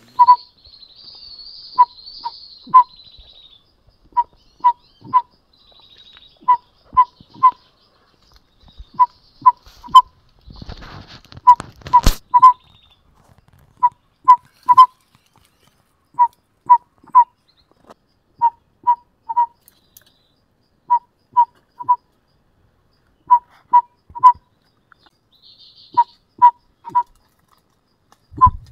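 Loud whistled call of three short notes on one pitch, the group repeated steadily about every two and a half seconds. A rustle and one sharp click come about eleven to twelve seconds in.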